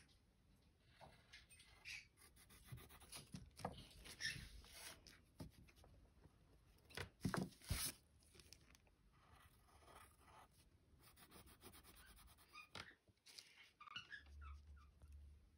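Near silence with faint pencil scratching and tapping on paper, and a louder cluster of rustles about seven seconds in.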